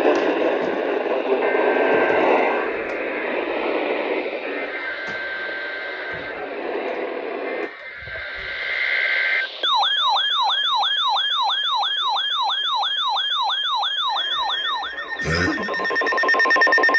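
NOAA Weather Radio alert signalling over a radio receiver. For the first several seconds, SAME digital header bursts come through with static. From about ten seconds in, a warbling siren alarm sweeps up and down about three times a second. Near the end it changes to a steady, rapidly pulsing two-tone beep.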